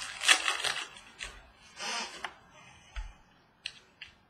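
Trading cards being handled and flipped by hand: short rustling, sliding swishes of card stock, then a few light clicks.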